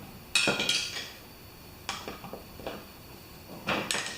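Hand tools clicking and clacking against metal: a handful of sharp knocks at uneven intervals, with a cluster of them near the end.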